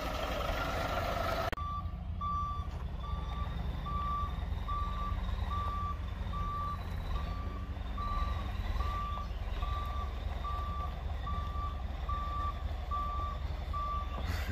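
Truck's backup alarm beeping steadily about once a second while the truck reverses, over the low, steady running of its diesel engine. A louder hiss at the start cuts off about a second and a half in, just as the beeping begins.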